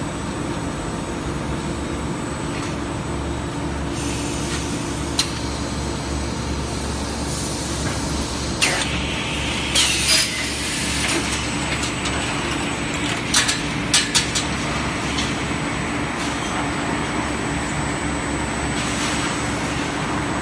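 Aluminium profile line machinery running with a steady hum. From about four seconds in there are several short hissing bursts, loudest about ten seconds in, and a quick run of sharp clicks a little later.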